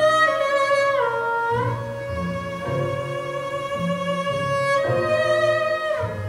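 Morin khuur (Mongolian horse-head fiddle) playing a slow, held solo melody, sliding down in pitch about a second in and again near the end, over a string orchestra's low bowed notes.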